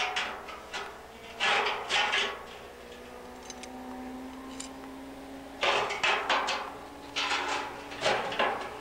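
Thin iron rods clanking against each other and against a steel oil drum in several bursts of metallic knocks, with the drum ringing on between them.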